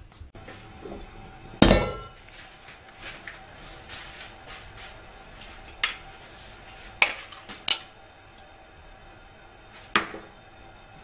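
A ceramic bowl and a metal wok knocking together as marinated pork is tipped from the bowl into the wok. There are five sharp clanks; the loudest, about two seconds in, has a short metallic ring.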